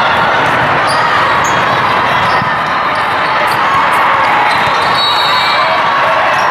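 Busy volleyball-tournament hall with several courts in play: a steady din of voices and hall noise, with scattered sharp thuds of volleyballs being hit and bouncing.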